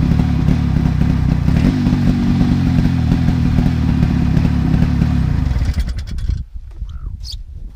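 Snowmobile engine running steadily under way, then cutting off about six seconds in, leaving only faint clicks and knocks.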